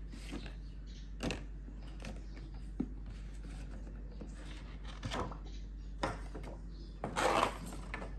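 A cardboard CD box set being handled: the printed slipcover slides off and the box is shifted about, giving a series of short scrapes and rubs. There is a light click about three seconds in, and the longest, loudest scrape comes about seven seconds in.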